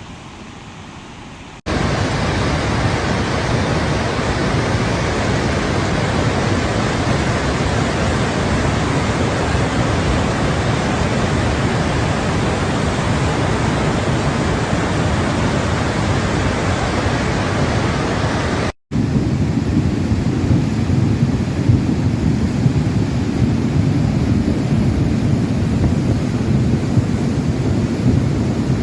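Swat River in flood: a steady, loud rush of floodwater. It starts quieter for about a second and a half, jumps up sharply, and after a sudden cut about two-thirds of the way in carries on with a deeper rumble.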